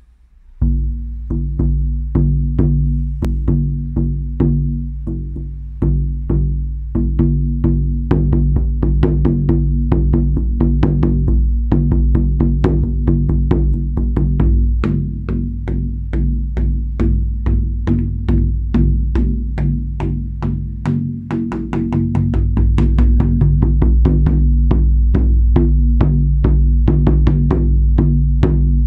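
A 52 cm shaman frame drum with a hair-on hide head is struck with a padded beater, giving deep ringing beats. The beats are slow at first and grow quicker after several seconds. They build into a fast, continuous roll for the last several seconds.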